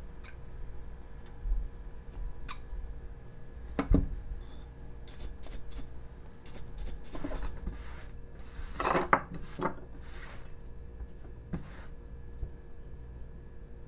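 Carving knife whittling a basswood figure: a run of short scraping cuts, bunched together in the middle, with a few light clicks and the rustle of loose wood shavings.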